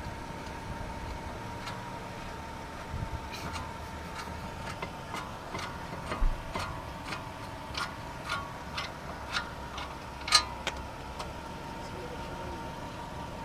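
Sharp metallic clicks and taps at irregular intervals, about one or two a second, with a low knock about halfway through and the loudest click a few seconds before the end: hand tools working the brake caliper bolts off a car's front brake. A faint steady whine sits underneath.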